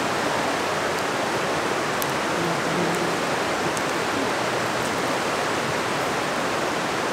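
A river rushing steadily, a continuous hiss of flowing water, with a few faint clicks.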